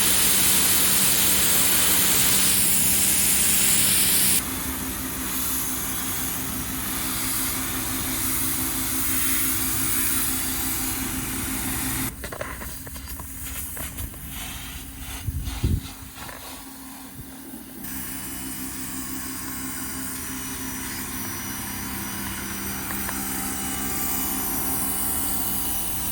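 A motor running steadily with a hiss. The sound is cut into several sections of differing loudness, with a short low thump about halfway through.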